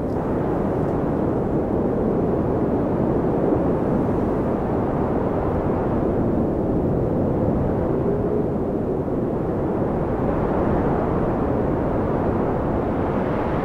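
Steady low rushing ambience of a snowstorm, an even rumble with a soft hiss above it and no separate events.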